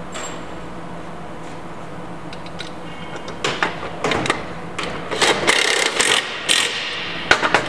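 Aluminium skylight frame parts knocking and scraping against each other and the metal bench as they are fitted together. A quiet start gives way, about three seconds in, to a string of sharp metallic knocks and rattles that is densest just past the middle.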